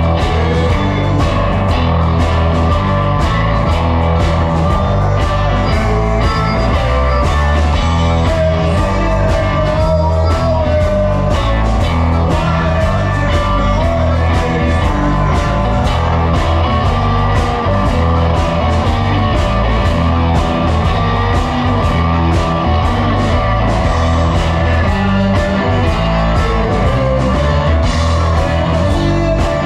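A live blues-rock band playing: electric guitar over bass and drums in a steady groove, with a wavering lead melody line.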